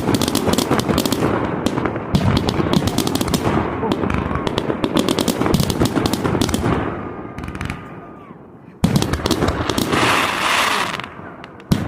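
Fireworks going off: a dense, rapid crackling of many small reports for about seven seconds that dies away, then a loud bang about nine seconds in with crackling after it, and another sharp bang near the end.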